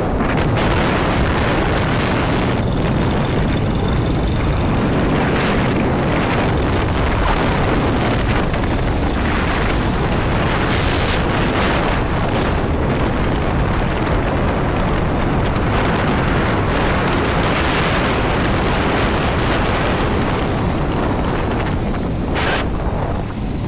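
Heavy wind buffeting the microphone of a moving motorbike, a steady loud rumble with the bike's running noise buried under it.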